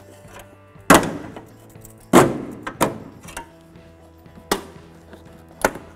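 Five sharp clacks about a second apart, each ringing out briefly, as a pry bar lifts and works a plastic engine-bay trim piece up off its clips. Background music with steady tones runs underneath.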